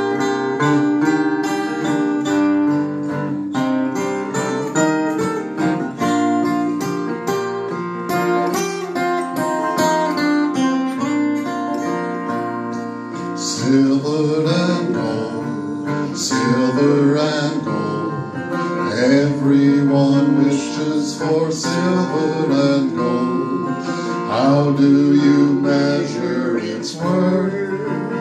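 Acoustic guitars playing an instrumental passage, strummed chords under picked melody notes. About halfway through the playing turns brighter and a little louder.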